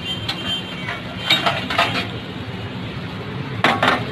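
Metal utensils clinking against steel cookware at a dosa griddle, over a steady low rumble. There are a few sharp clinks shortly after the start, a cluster of them between one and two seconds in, and more near the end.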